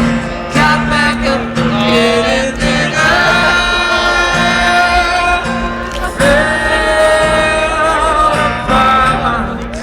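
Live acoustic rock song: acoustic guitar under long, held sung notes.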